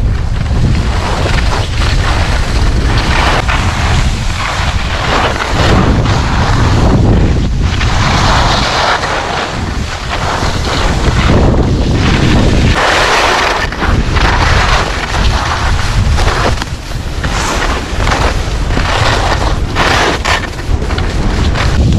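Wind buffeting a GoPro Hero8 Black's microphone during a fast ski descent: a loud, steady low rumble, with the hiss of skis on packed snow surging and fading through the turns.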